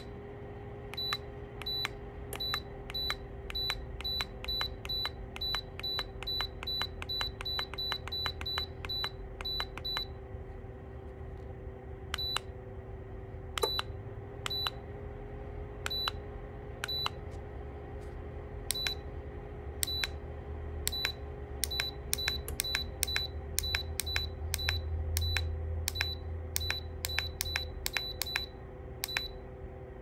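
Lasko CT32791 ceramic tower heater beeping once for each remote button press as the set temperature is stepped down. The beeps come in fast runs of two to three a second, with a slower stretch of single beeps in the middle, over the steady hum of the heater's fan.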